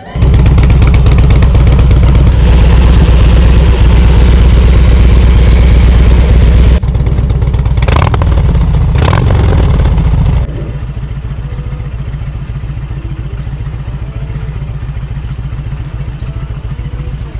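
Harley-Davidson Road King Classic's Twin Cam 88 V-twin running loud and steady, then dropping to a much quieter, steady lower-speed run about ten seconds in.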